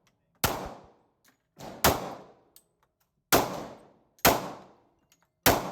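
Five gunshots roughly a second apart, each a sharp crack with a short decaying tail.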